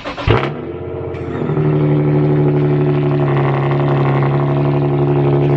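Cold start of an Infiniti G37's 3.7-litre V6 through its modified exhaust. The engine catches with a sharp burst in the first half-second, then settles into a steady high idle from about a second and a half in.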